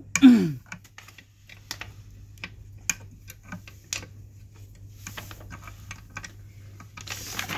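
An Allen key turning a bolt into the chair frame gives a string of small irregular metal clicks and ticks. Just after the start there is a short sound that falls in pitch, the loudest moment, and near the end a brief scrape.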